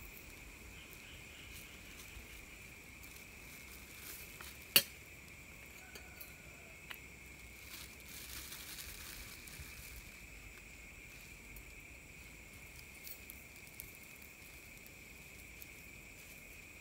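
Steady high drone of insects in the forest, with scattered small crackles from the wood campfire and the rustle of a plastic bag being handled. One sharp snap about five seconds in is the loudest sound.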